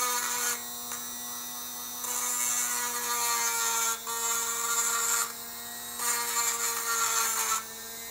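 Dremel rotary tool running steadily while its small grinding bit is pressed in four spells against the port edges of a Polini 70cc big-bore cylinder, grinding and rounding off the razor-sharp edges so the piston rings won't catch on them.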